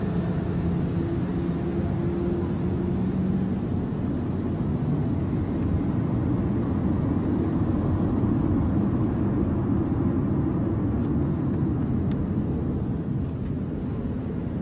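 Cabin noise of a 50-series Toyota Prius hybrid on the move: a steady low road and drivetrain rumble, with a faint hum in the first few seconds.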